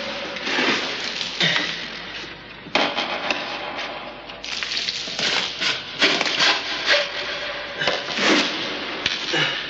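Rocks and loose rubble scraping and clattering as they are shifted by hand, with irregular sharp knocks over a steady gritty rustle.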